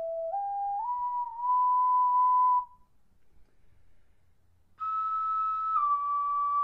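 A slow solo melody on a flute-like instrument. It climbs note by note to a held high note and stops about two and a half seconds in. After about two seconds of near silence it comes back a step higher, with a brighter tone, and descends note by note.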